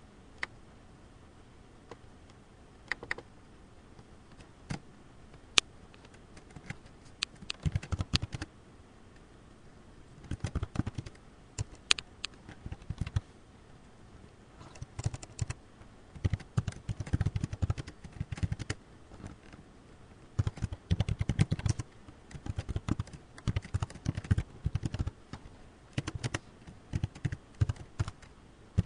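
Typing on a computer keyboard in irregular bursts of keystrokes with short pauses between them, after a few scattered single clicks in the first several seconds.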